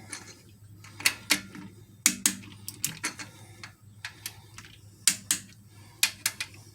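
A 3/8-inch-drive click-type torque wrench breaking over at 22 ft-lb on Jeep 4.0 cylinder-head bolts, rechecking them in the first pass of the head-bolt sequence. Several sharp metallic clicks, mostly in quick pairs about a second apart, over a low steady hum.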